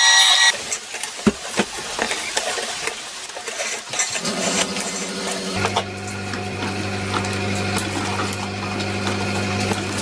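Drill press motor whining as it drills sheet stainless, cutting off about half a second in. Then come clinks and knocks of the drilled sheet being handled and fed into a slip roll, over a steady low hum that sets in about halfway through.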